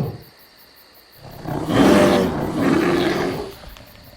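Lion roar sound effect: one long, loud roar starting about a second in.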